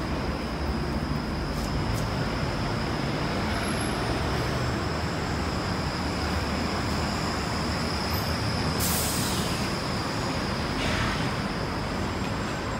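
Steady city road traffic, with a short burst of hiss about nine seconds in and a fainter one near eleven seconds.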